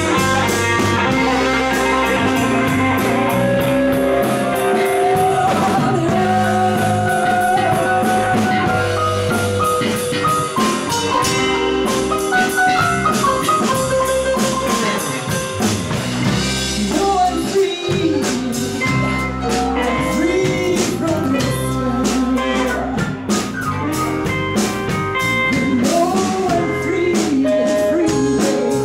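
Live blues-rock band playing: electric guitar over a drum kit, with a woman singing.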